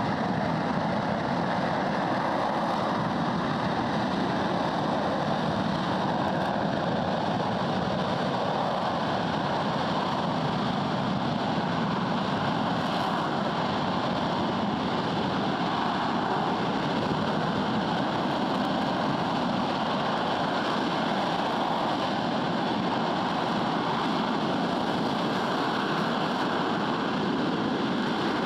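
RS-25 liquid-hydrogen/liquid-oxygen rocket engine, a former space shuttle main engine, firing continuously during a long-duration hot-fire test, a steady rushing noise at a constant level.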